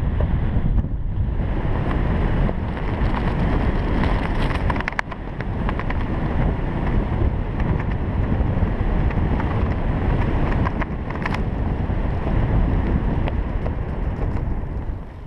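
Wind buffeting a jumper's camera microphone during a parachute descent under an open canopy: a loud, steady rush with a few sharp flaps or clicks. It eases off near the end as the jumper nears the ground.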